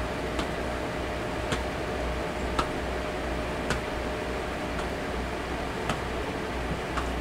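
Loose fists tapping on the chest near the shoulder in a qigong knocking exercise: a short tap about once a second, in time with the swinging arms. A steady background hum runs underneath.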